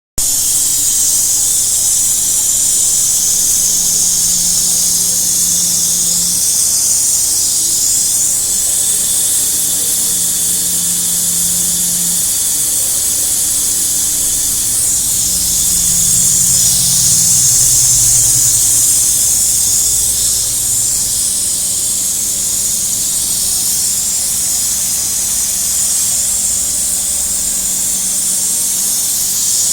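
CNC wire-cut EDM machine running: a steady high hiss, with a low hum that comes and goes.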